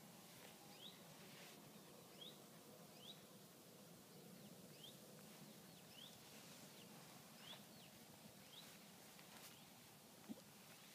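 Faint bird chirping: a short, high, rising chirp repeated every second or so.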